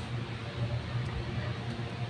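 Steady background noise: an even hiss over a constant low hum, with no clicks or sparks.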